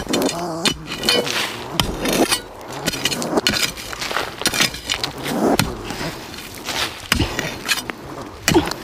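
A knife blade scraping and poking at dry soil around a small burrow hole, heard as an uneven run of short scrapes and knocks.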